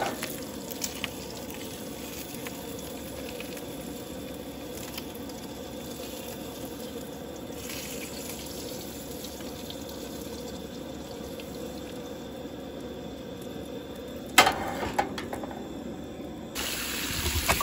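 Coleman propane camp stove burner hissing steadily. About fourteen seconds in, a steel frying pan is set down on the stove's metal grate with a sharp clank.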